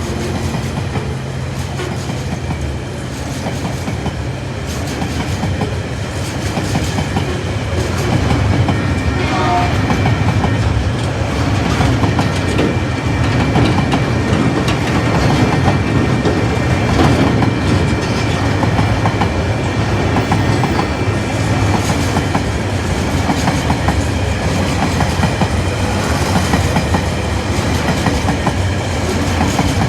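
Tasrail freight train's wagons rolling past, wheels clacking steadily over the rail joints, getting a little louder about eight seconds in.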